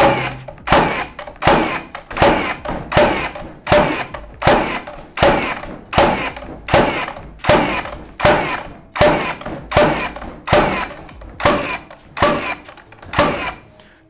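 Milwaukee M18 FFN21 cordless framing nailer firing nail after nail into a wooden beam in rapid series mode, a sharp bang about one and a half times a second, steady throughout. Each shot drives its nail home.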